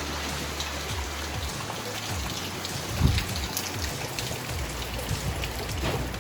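Steady typhoon rain falling, with many drops striking close by and a louder knock about three seconds in.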